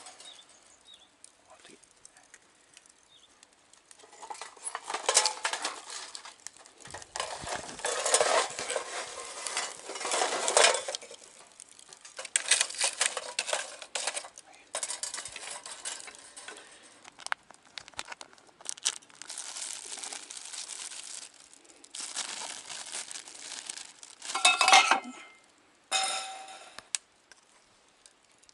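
Crinkling of plastic packaging and clinks of utensils and dishes in irregular bursts, with short pauses between them.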